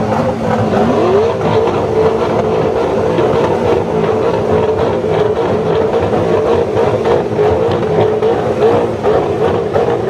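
Race car engine revving up and held at high revs, wavering slightly, with repeated sharp exhaust pops and crackles from its antilag system.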